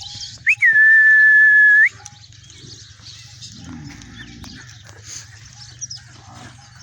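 One long, steady, high whistled note lasting over a second, starting about half a second in, followed by quieter farmyard sounds.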